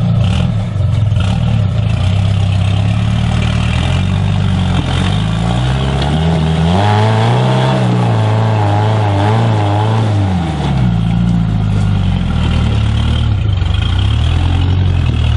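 An off-road rock crawler's engine running under load. It revs up about six seconds in, holds high for a few seconds with a wavering whine, then drops back to a steady lower speed.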